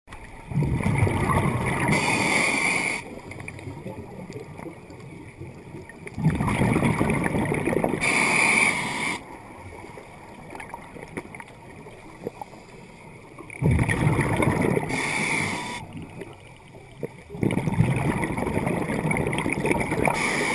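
Scuba diver breathing through a regulator underwater: four breaths, each a rush of bubbling and hiss lasting two to three seconds, with quieter gaps between.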